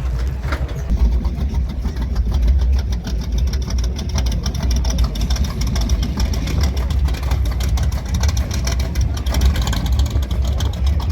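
Loud car engine running close by, its exhaust firing in a rapid, steady pulse with a heavy low rumble, over faint voices.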